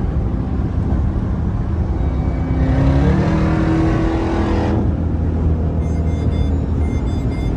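Jeep Grand Cherokee Trackhawk's supercharged V8 heard from inside the cabin, a steady drone that rises in pitch under hard acceleration about two and a half seconds in, then eases off about two seconds later.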